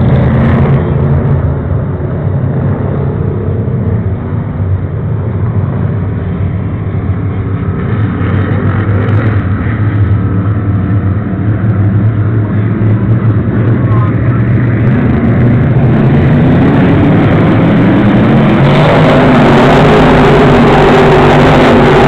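Pro stock race cars lapping an oval track, their engines running together in a continuous loud drone. The sound eases off somewhat a few seconds in and swells again from about two-thirds through, loudest near the end as the field comes past close by.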